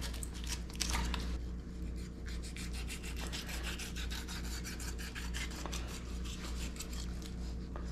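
Fillet knife cutting a tautog fillet, skin on, away from the rib cage, the blade rasping over the bones in rapid scratchy strokes.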